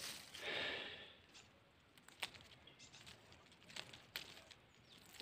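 Rustling of a long rose cane and its leaves as it is handled and bent, with a short swish about half a second in, then a few faint scattered clicks.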